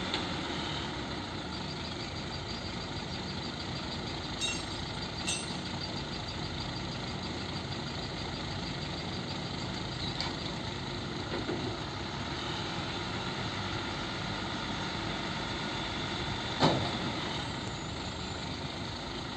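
Hino FM 260 TI truck's diesel engine running steadily, driving the loader crane's hydraulics as the boom is folded. A few sharp knocks stand out over it, the loudest near the end.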